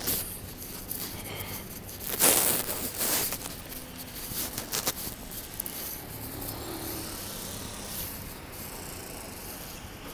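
City street ambience at a crossing at night: a steady low background of traffic, with a loud rustling burst about two seconds in and a few smaller ones after it.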